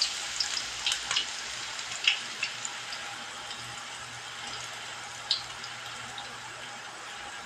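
Chopped garlic frying in hot cooking oil: a steady sizzle that eases over the first few seconds, with scattered sharp pops and crackles.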